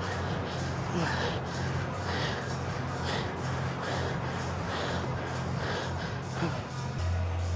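A man breathing hard in rhythmic gasps, about one a second, as he pedals an air bike flat out and runs out of breath. Underneath is the steady whoosh of the bike's fan.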